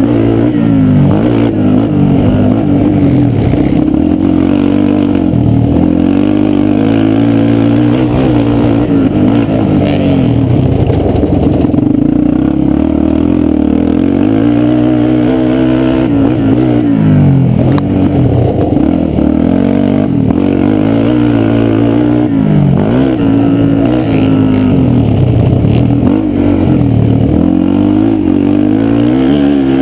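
Yamaha sport quad's single-cylinder four-stroke engine revving up and dropping back again and again as the throttle is worked through corners and over bumps.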